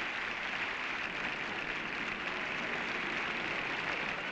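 Steady applause from a concert hall audience, an even, unbroken clatter of many hands.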